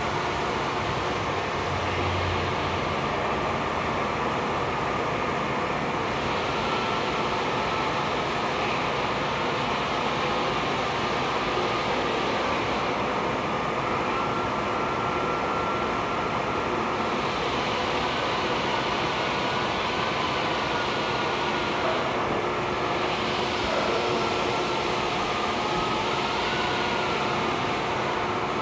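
Granite CNC spindle spinning a diamond tool while an abrasive dressing stick is swept lightly against it: a steady grinding hiss over the machine's running noise, with a faint whine that drifts slightly in pitch.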